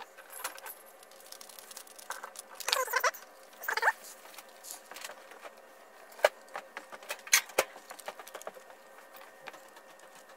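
Clicks, taps and rustles of hands working cable wires into the screw terminals of a variable frequency drive and handling its plastic case, with a few sharp clicks in the second half. Two short wavering squeaks come a little under three seconds in and again about a second later.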